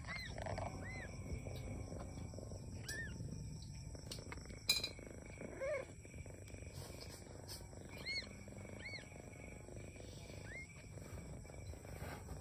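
Mother cat purring in a low, steady rumble while her newborn kitten gives short, high squeaking mews in small clusters, with one lower cry about halfway through.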